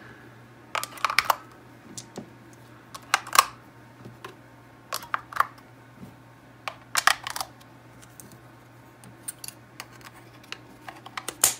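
AAA batteries being pressed one by one into the spring contacts of a TI-89 graphing calculator's battery compartment, then its plastic battery cover fitted back on: clusters of sharp plastic-and-metal clicks every second or two.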